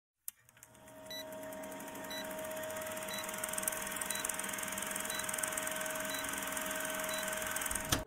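Old-film countdown leader sound effect: a film projector running with a steady whir, hiss and crackle that fades in over the first couple of seconds, and a short high beep about once a second.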